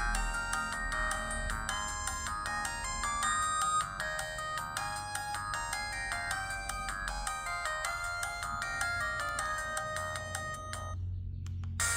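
LG MG180 mobile phone playing a ringtone: a quick electronic melody of short notes in several parts. It cuts off shortly before the end, and after a gap of about a second the next ringtone begins.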